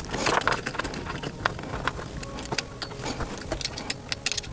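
Scattered light clicks and small knocks of handling parts while bar-end plugs are fitted into kick-scooter handlebars.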